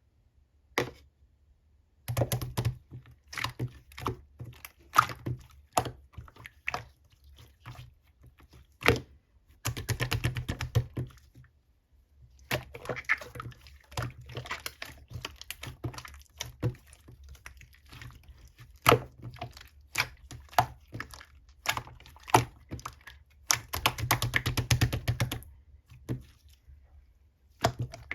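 White slime being squished and poked by hand, giving irregular sharp clicks and pops with denser crackling runs now and then.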